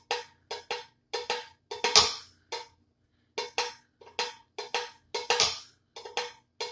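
Homemade foot-pedal percussion: a pedal beater striking a large tin can set on a cigar box base, sharp clanking hits that ring briefly with a metallic tone. They come in a loose, uneven beat of about three to four hits a second, with a short break near the middle.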